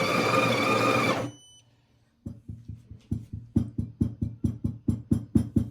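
Sage Barista Touch's built-in conical burr grinder grinding coffee beans with a steady whirr, then stopping about a second in. Then a run of short, soft knocks, about four a second.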